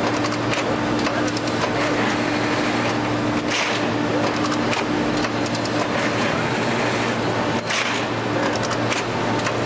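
Industrial baler running: a steady hum from its hydraulic power unit, with a couple of brief noisy hisses or clatters as the machine works.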